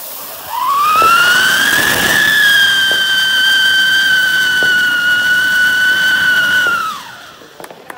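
Whistling ground fountain firework burning: a loud whistle rises in pitch over about the first second and a half, holds steady, then drops and stops about a second before the end, over a hiss of spraying sparks with a few faint pops.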